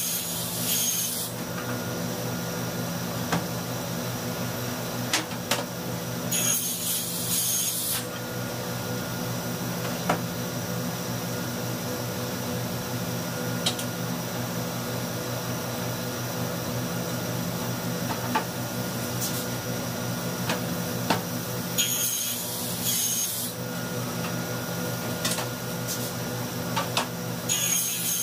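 Table saw running steadily with a constant motor hum, its blade cutting through wooden board in four short hissing bursts: near the start, about seven seconds in, around twenty-two seconds and near the end. Light knocks and clicks come as the boards are handled on the steel table.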